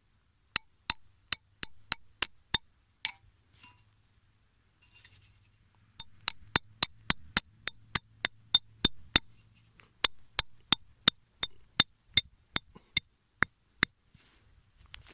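Hammer striking a metal stake to drive it into the ground, anchoring chicken bait wired to it: sharp metallic clinks at about three a second, in three runs broken by pauses about 3 and 9 seconds in.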